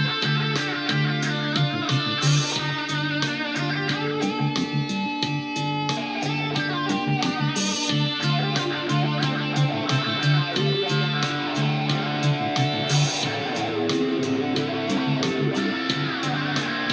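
Guitar being played: picked melody notes over a repeating low bass note, steady throughout.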